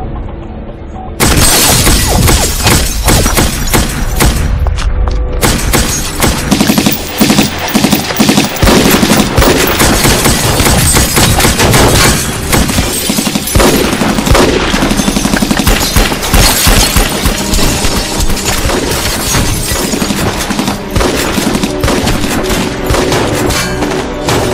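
Long sustained bursts of automatic gunfire, starting suddenly about a second in, with bullets hitting a car and its window glass shattering.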